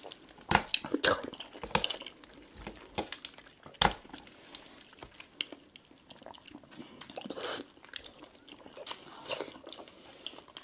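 Wet eating sounds of Kyoho grape jelly balls being sucked and chewed, with scattered small clicks and one sharp, louder click about four seconds in.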